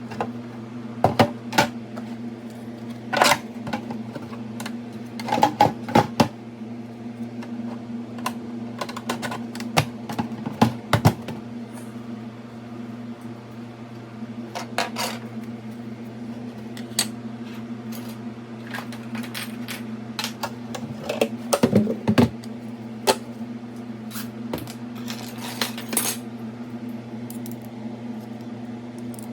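Hard small parts being handled: scattered clicks, clinks and knocks in short clusters, over a steady low hum.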